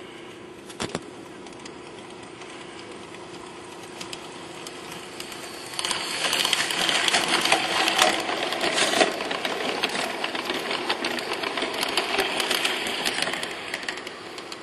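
LGB garden-scale model train running past close by. Its wheels click rapidly over the track joints over the whir of its motor and gears. The sound rises sharply about six seconds in and fades again shortly before the end.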